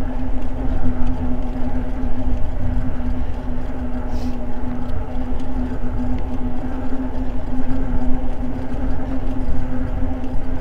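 Eahora Juliet e-bike rolling along a paved trail at about 14 mph: a steady, even hum from the motor and tyres, under heavy low rumble of wind on the microphone.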